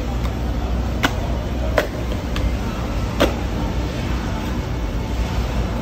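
Large knife cutting into the head of a giant bluefin tuna, the blade giving a handful of sharp clicks roughly a second apart, over a steady low hum.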